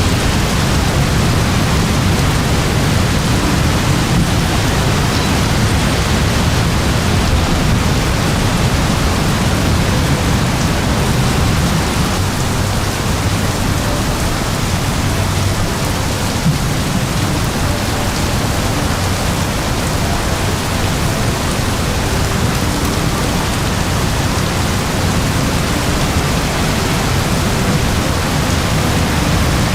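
Very heavy rain falling steadily: a dense, unbroken hiss with a deep low rumble and no letup.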